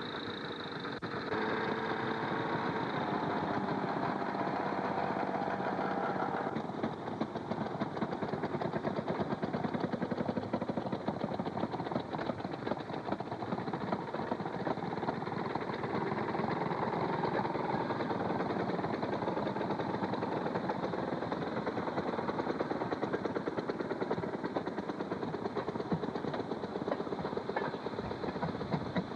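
Railroad motor cars' small two-stroke engines running with a rapid, continuous popping exhaust as the cars pull away along the track. A steady tone also sounds through the first six seconds or so, then stops.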